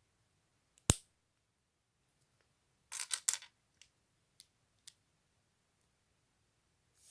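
Plastic LEGO pieces being handled and snapped together: one sharp click about a second in, a quick cluster of clicks and rattles around three seconds, then three light ticks.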